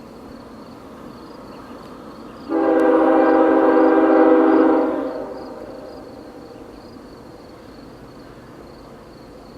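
Canadian National diesel locomotive's air horn sounding one long blast of about two and a half seconds, a chord of several tones, starting a couple of seconds in and trailing off over the next second.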